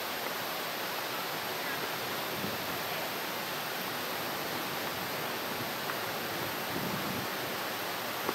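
Steady, even background hiss with no distinct sound standing out.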